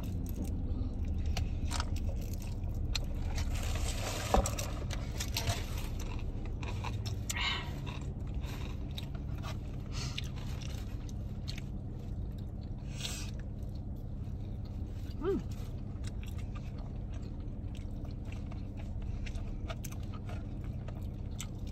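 Someone eating close to the microphone: chewing and crunching with small scrapes and clicks, over a steady low hum. There is a sharp click a little after 4 seconds in and a brief squeak about 15 seconds in.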